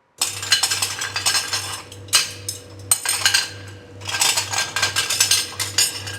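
Bursts of rapid clinking and clattering, like small hard objects knocking together, over a steady low hum.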